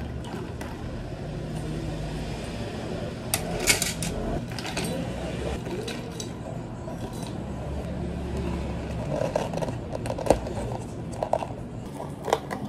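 Long bar spoon stirring ice in a plastic cup of iced Earl Grey tea, with sharp clinks, followed later by several clicks and snaps as plastic dome lids are handled and pressed onto the cups. A steady low hum runs underneath.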